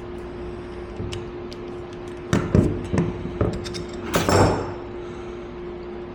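Small hard parts of a pitcher rinser valve and its rebuild kit being handled and set down. There are a few light clicks, then a cluster of sharp knocks, then a short scraping rustle, over a steady electrical hum.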